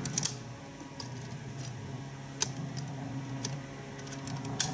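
Several sharp, separate metallic clicks from the aluminium frame of a kayak cart as its locking pins are pushed back in and the frame is handled, over a steady low hum.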